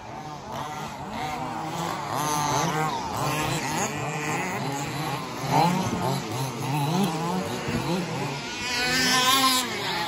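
Several radio-controlled 2WD buggies racing, their motors whining in overlapping tones that rise and fall as they accelerate and brake around the track.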